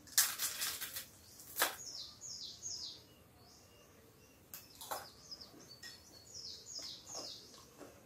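Crunching bites into cu do candy, a peanut-and-molasses brittle pressed between crisp rice crackers: a burst of crackly crunches just after the start and a sharp snap about a second and a half in, then quieter chewing crunches around five and seven seconds in. Birds chirp in the background in short falling chirps.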